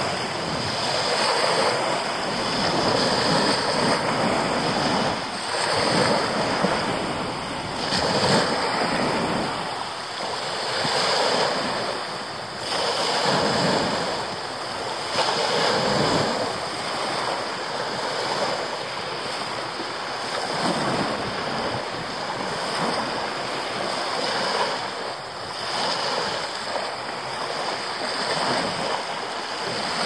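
Sea waves washing in on a pebble beach, the surf swelling and falling back every two to three seconds.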